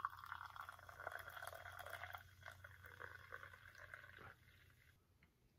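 Carbonated Orangina poured from a can into a small glass, a steady pour that stops about four seconds in, with a faint hiss lingering for a moment after.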